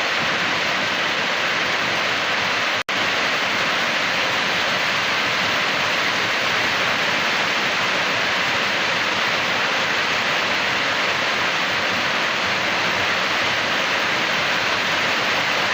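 Steady rushing noise of water in a typhoon flood, broken once by a sudden brief dropout about three seconds in.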